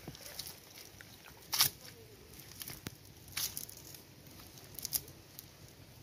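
A wet cast net being gathered and lifted off the mud, making scattered light rustles and small clicks, with a sharper one about a second and a half in and a few more later on.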